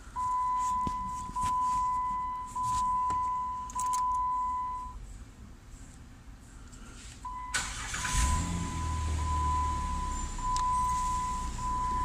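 A dashboard warning chime repeats about once a second, then stops for a couple of seconds. About seven and a half seconds in, the Jeep Wrangler JK's 3.8-litre V6 cranks and catches, with a low rumble as it starts, while the chime starts again. It starts only when the ignition switch's plug is pried to one side: a faulty ignition switch losing connection inside.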